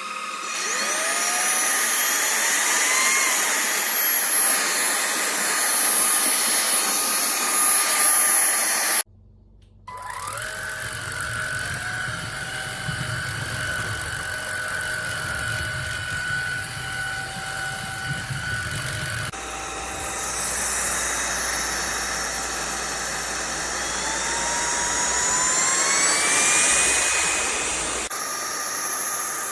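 Cordless stick vacuum motor running with a high whine, its pitch rising as it spins up at the start. It cuts out briefly about nine seconds in and resumes with a lower, duller sound, and its whine climbs again a few seconds before the end.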